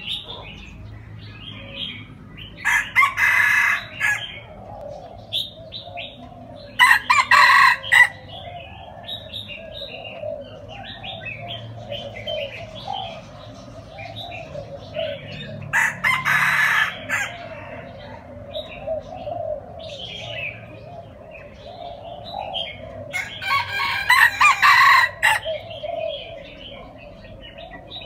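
Red junglefowl rooster crowing four times, each crow lasting about one to two seconds, the last one the longest. Softer bird chirps and calls fill the gaps between crows.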